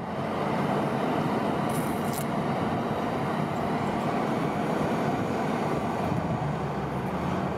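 Wheel loader's diesel engine running steadily as it pushes snow, a dense, even rumble.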